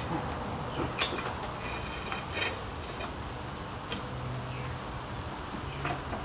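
A few light metallic clinks and taps, scattered over several seconds, as a steel pivot rod is handled and fitted into the crane's mounting bracket.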